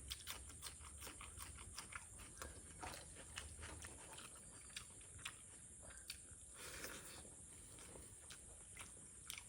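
A person chewing and biting food up close, with faint, irregular small clicks and crunches.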